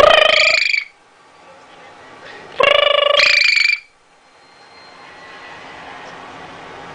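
Amazon parrot calling loudly twice: a short call at the start, then a longer two-part call about two and a half seconds in.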